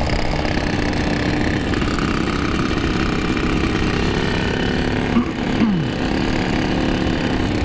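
Several motorcycles, two-stroke Yamahas among them, running along at cruising speed: a steady engine drone over wind and road noise. About five and a half seconds in, one engine's pitch drops quickly as it is throttled off.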